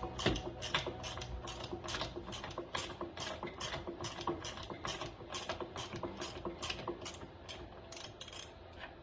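Half-inch socket ratchet clicking rapidly, about four or five clicks a second, as it backs a freed nut off a golf cart's front bumper bolt; the clicking stops shortly before the end.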